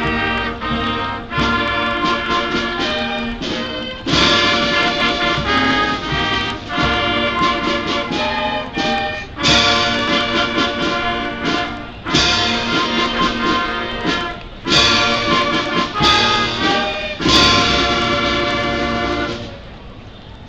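A sixth-grade concert band with brass playing, with loud accented chords every few seconds. Near the end the band drops away to a brief quiet.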